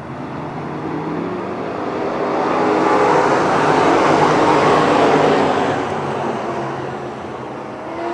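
A pack of dirt-track race cars passes on the track, their engine noise swelling to a peak about three to five seconds in and then fading away.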